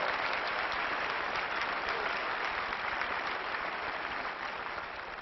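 A large audience applauding, the clapping slowly dying away near the end.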